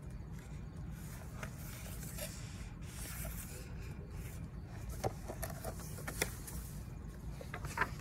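Steady low background rumble with a few soft clicks and rustles from handling a picture book, several of them close together near the end as the pages are handled.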